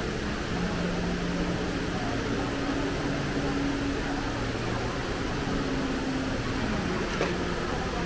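Steady rushing of the Dubai Mall's multi-storey indoor waterfall, water falling into its pool, blended with the hubbub of a busy mall atrium; a short click sounds about seven seconds in.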